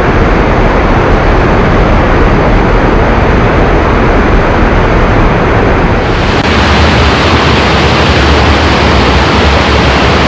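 Water gushing in through sluice openings in a dry-dock wall and splashing onto the dock floor as the dock is flooded: a loud, steady rush. The rush turns brighter about six seconds in, where two sluices are running.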